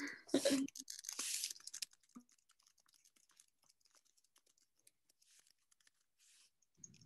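Near silence on a video-call line, after a short burst of rustling noise at the microphone in the first two seconds, with a few faint ticks afterwards.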